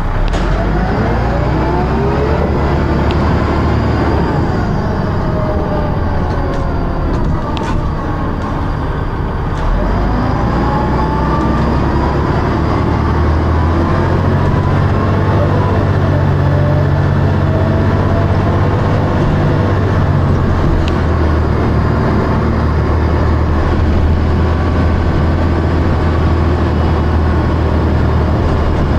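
Dennis Arrow single-deck bus heard from inside while under way: the diesel engine and ZF automatic gearbox run loudly, with whining tones that rise in pitch several times as it pulls through the gears. The uploader describes the gearbox as slipping and the bus as thrashing and making a strange high-pitched noise.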